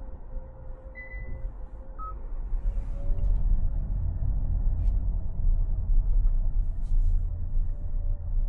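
2025 Hyundai Santa Fe on the move: a low rumble of engine and road noise with a faint steady hum, growing louder about three seconds in. Two short faint beeps come near the start.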